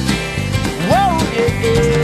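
Background music: a country-style song with a steady beat, with a note that slides up about a second in and is then held.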